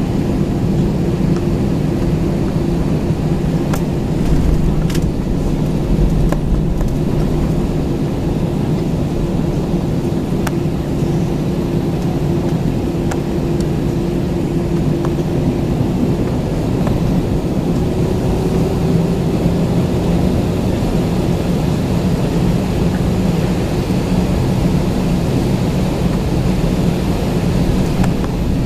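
Cabin noise of an Airbus A320-214 taxiing, heard from a window seat over the wing: the steady low hum of its CFM56 engines at taxi power, with a tone in it that rises slightly about two-thirds of the way through, and a few faint ticks.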